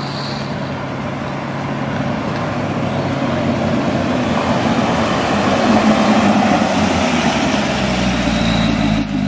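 Chevrolet Corvette C6 Grand Sport's 6.2-litre V8 driven slowly toward the listener and growing steadily louder as the car approaches. From about eight seconds in it comes alongside, and the engine settles into an even low hum.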